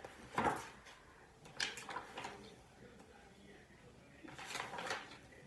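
Faint handling noises: a soft knock about half a second in, a few light clicks, and a brief rustle near the end.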